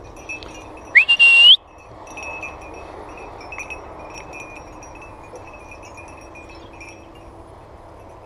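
Small bells on hunting dogs' collars tinkling on and off in the scrub, with one loud whistle about a second in that slides up, holds and rises again.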